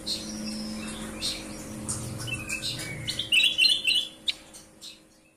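Bulbuls (kutilang) calling in short chirps, then a louder run of quick song notes about three and a half seconds in, over a low steady hum. The sound stops shortly before the end.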